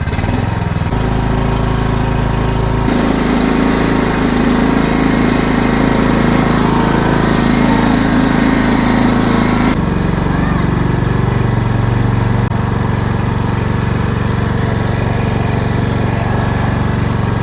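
Cub Cadet riding lawn mower engine running steadily. Its hum changes abruptly a few times.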